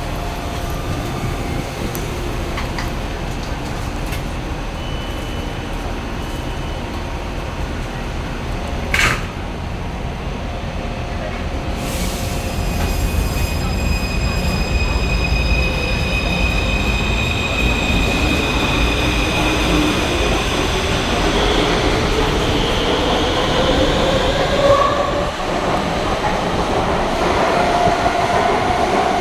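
Taipei Metro C341 electric train pulling out of the station. Two sharp clicks come about a third of the way in, then the traction motors set up a whine that rises steadily in pitch and gets louder as the train picks up speed.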